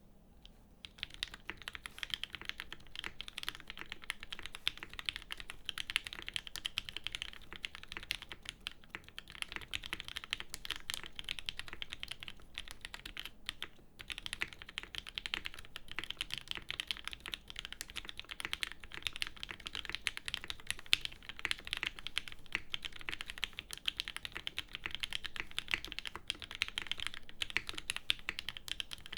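Steady fast typing on an unplated F2-84 mechanical keyboard with lubed Gateron Ink Black V2 linear switches and GMK Space Cadet keycaps. It begins about a second in and stops briefly near the middle.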